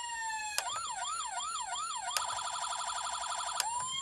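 Four-tone electronic siren of a battery-powered 1/18 scale diecast police Crown Victoria toy, changing tone with each press of its button. A slow falling wail gives way, with a short click, to a quicker up-and-down yelp about three times a second. After another click comes a rapid pulsing warble, and near the end a third click starts a slow rising wail.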